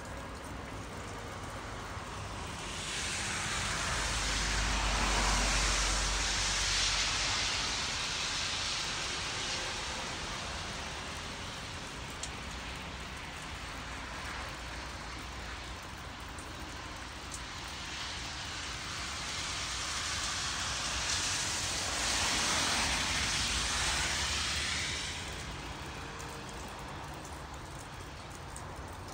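Steady rain with two vehicles passing on a wet road, each a hiss of tyres that swells and fades over several seconds. The first passes a few seconds in with a low rumble at its loudest, the second about two-thirds of the way through.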